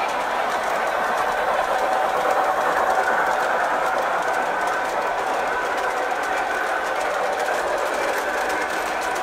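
Model train running on the layout: its small electric motor whirring steadily as the wheels roll on the track, swelling slightly a few seconds in.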